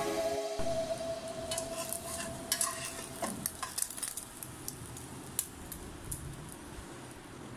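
Egg-coated flour tortilla frying in oil in a nonstick pan, a steady sizzle with a metal spatula scraping and clicking irregularly against the pan as it is turned and lifted out.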